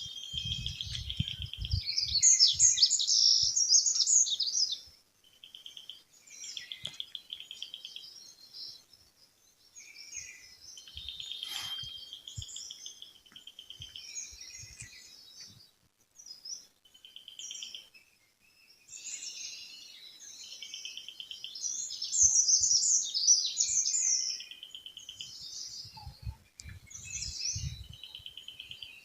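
Several songbirds chirping and singing: short rapid trills on one pitch repeating every few seconds, mixed with quicker high-pitched chirps that swell loudest twice, once near the start and again about two thirds of the way through. A few low thumps sound at the start and near the end.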